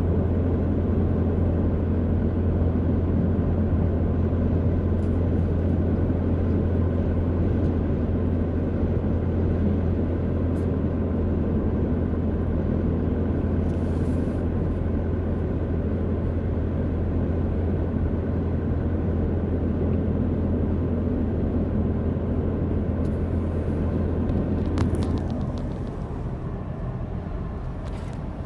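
Cabin noise of a Mitsubishi Pajero Sport with its 2.4-litre diesel, cruising at motorway speed: a steady low drone of engine and tyre noise. Near the end the drone eases off and a few light knocks are heard.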